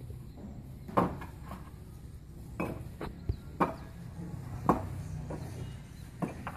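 Construction work: a series of about nine short, sharp knocks and taps at irregular intervals.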